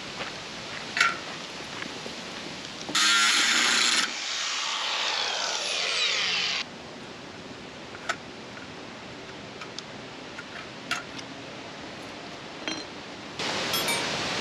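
A power tool runs loudly for about a second, then its motor winds down in a falling whine over two or three seconds. Scattered light clicks and knocks follow, and a steady hiss sets in near the end.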